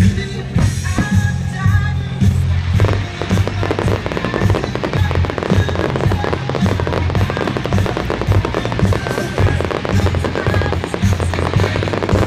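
Fireworks crackling in a dense, rapid mass of pops that sets in about three seconds in, over loud music with a heavy bass beat.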